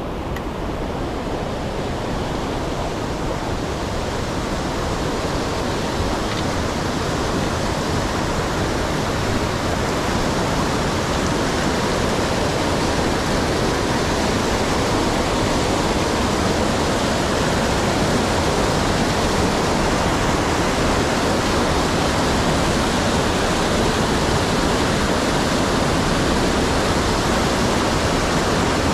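Rushing water, a steady roar that grows gradually louder.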